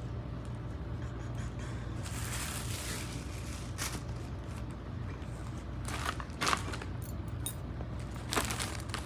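Handling noise as objects are moved about while something is searched for: soft rustling, scraping and a few sharp clicks and knocks, over a steady low hum.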